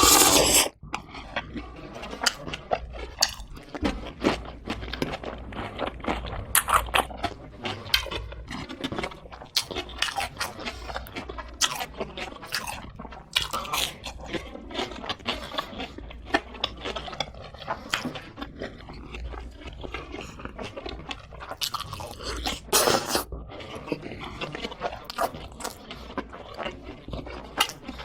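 Close-miked crunching and chewing of crispy fried chicken: irregular crisp bites and mouth sounds. There is a louder crunch right at the start and another about 23 seconds in.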